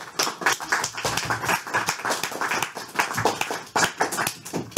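Audience applauding at the end of a lecture, many separate hand claps overlapping in an irregular patter.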